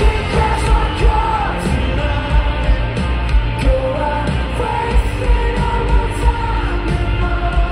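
Live pop-rock band playing loud, with sung lead vocals over pounding drums and bass guitar, recorded from within the crowd.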